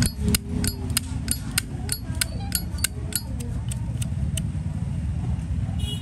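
Zippo lighter lid being clicked open and shut over and over, about three sharp metallic clicks a second, some with a short ring. The clicks stop a little past four seconds in, and one more comes near the end.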